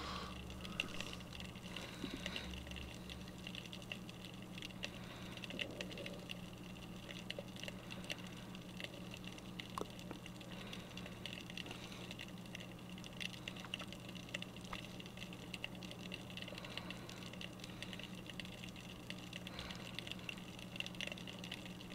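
Faint, muffled underwater ambience heard through a submerged action camera: a steady low hum with scattered light ticks and crackles.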